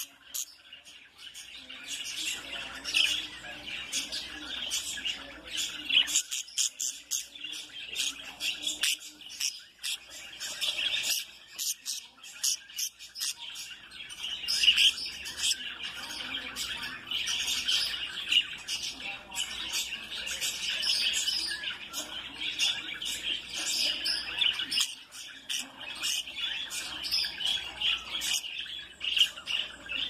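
Budgerigars chirping and chattering without pause, a dense stream of quick, sharp chirps.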